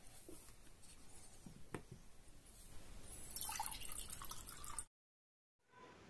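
Water poured from a bottle into a drinking glass, splashing and filling for about a second and a half and then cutting off suddenly. Before it come a few light knocks of dishes set down on the table.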